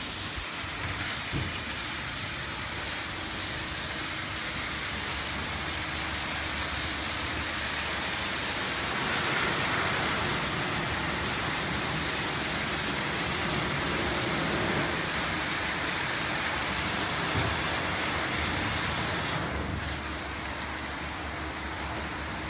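HAITIAN XL-200 rollover car wash machine running over a car: a steady hiss of water spray and soft brushes turning against the body, over a low machine hum. Near the end the high hiss drops away and the sound gets a little quieter.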